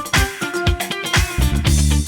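Background music: upbeat funk-style track with plucked guitar, bass and a steady beat.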